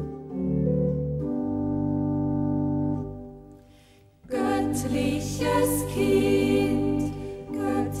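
An organ holds sustained chords that die away a little after halfway. About four seconds in, voices begin singing with instrumental accompaniment.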